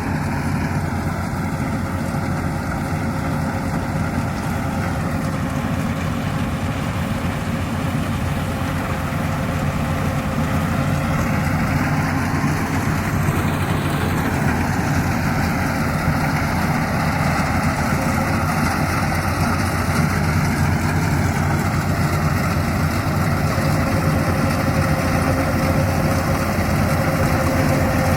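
Yanmar AW82GV combine harvester's diesel engine and machinery running steadily while harvesting rice: an unbroken low drone that grows slightly louder near the end.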